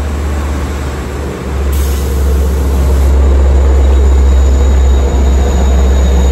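Long Island Rail Road bi-level passenger coaches rolling past at speed, wheels running on the rails with a heavy low rumble that grows louder about a second and a half in. A faint high wheel squeal comes in partway through.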